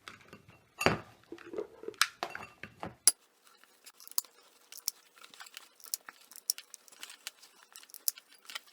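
Handling noises from gluing burlap onto a milk carton: a few sharp knocks and taps in the first three seconds, then a run of faint small clicks and crackles.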